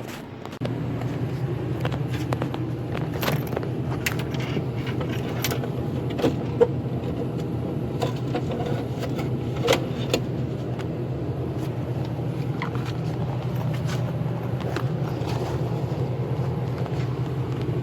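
A car driving, with steady engine and road noise and occasional small clicks and rattles.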